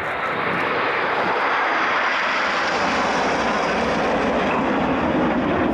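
A formation of BAE Hawk T1 jet trainers passes overhead with a steady jet roar. The roar deepens in the second half as the formation moves past.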